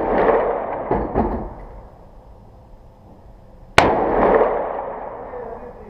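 AR-15 rifle firing a single shot almost four seconds in, followed by a long echoing tail. At the start the echo of a shot fired just before is still dying away, with a couple of smaller knocks about a second in.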